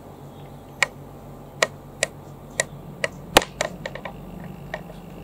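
About a dozen irregular sharp clicks of computer keys being pressed, the loudest a little past the middle, over a low steady room hum.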